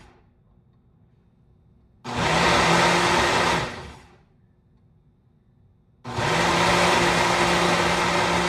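Ninja blender pulsed in bursts while grinding frozen fruit and dates: it runs for under two seconds and spins down, then starts again about six seconds in and keeps running.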